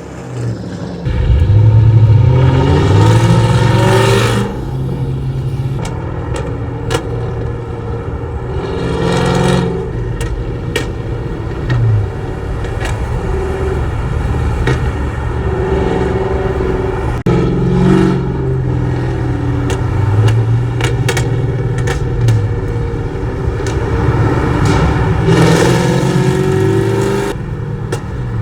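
Lexus GS400's 1UZ-FE V8 running through a 2.5-inch straight-pipe exhaust with an X-pipe and gutted catalytic converters, revving up in several loud surges with steadier running in between.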